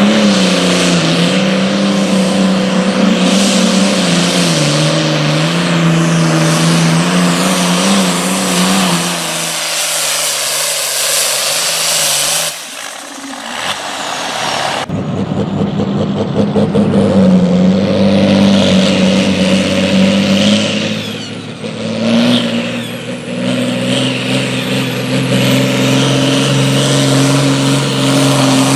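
Pulling tractors' diesel engines running at full throttle under heavy load while dragging a weight-transfer sled, the engine note shifting in pitch. The sound breaks off and changes abruptly about halfway through as a different tractor takes over, and a thin high whistle rides over the engine in the second half.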